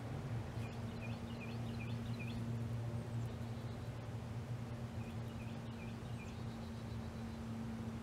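Steady low hum, with a bird chirping in two quick runs of about five short notes each, one near the start and one past the middle.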